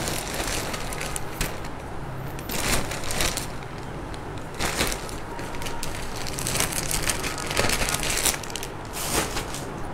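Garments and their packaging rustling and crinkling as they are handled and sorted, in irregular bursts, over a steady low room hum.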